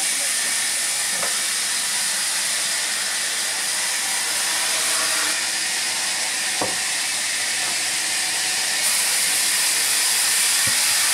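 Steady hiss of a running sawmill saw, growing a little louder near the end, with three faint knocks of logs being handled.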